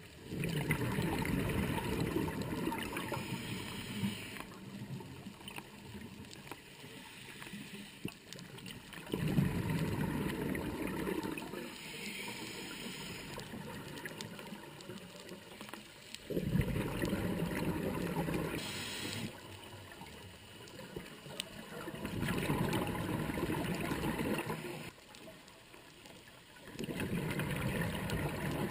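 Scuba diver's breathing heard underwater: five long rushes of exhaled bubbles from the regulator, each two to four seconds, coming every five to seven seconds with quieter stretches between.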